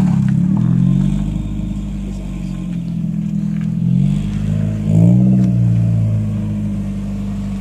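Toyota Altezza's 3S-GE four-cylinder engine running, with the revs easing down at the start and a brief rev up and back down about five seconds in.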